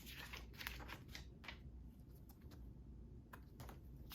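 Faint rustle of paper booklet pages being turned by hand: a few soft swishes in the first second and a half, then only a few light taps.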